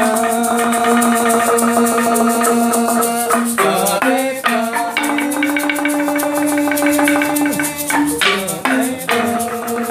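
Live traditional Sundanese music: a melody held on long notes with sliding changes of pitch, over dense, rapid rattling percussion.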